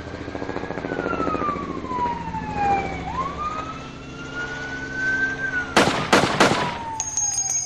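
Emergency-vehicle siren wailing in a slow rise and fall over a steady low rumble, then three sharp bangs in quick succession about six seconds in.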